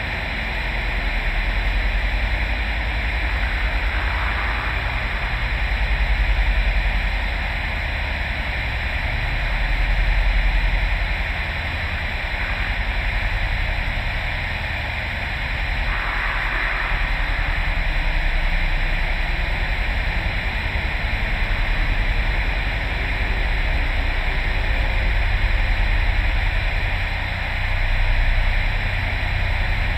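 Steady hiss of static over a deep rumbling drone, slowly swelling and easing in loudness.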